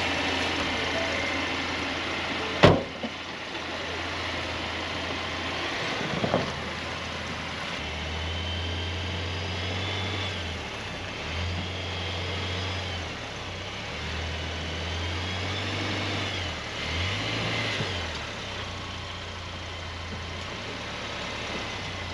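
Ford Ranger pickup's 2.3-litre turbo four-cylinder engine idling, then pulling in several short bursts as the truck backs up onto wooden ramps. A loud sharp thump about three seconds in, the driver's door shutting, and a smaller knock a few seconds later.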